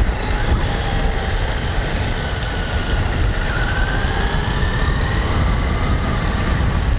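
Kawasaki Z900 inline-four motorcycle engine running while riding, under heavy wind rumble on the on-bike microphone; its whine rises slowly about halfway through.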